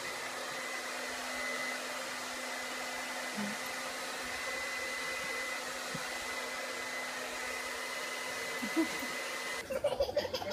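Handheld hair dryer running steadily, a rush of air with a thin high whine, cutting off suddenly near the end.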